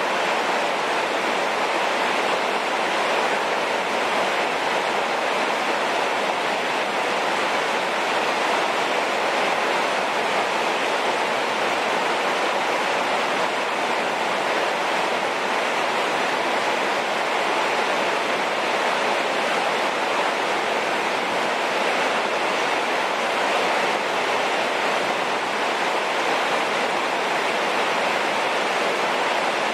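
Heavy rain falling in a steady downpour, an even wash of noise with no let-up.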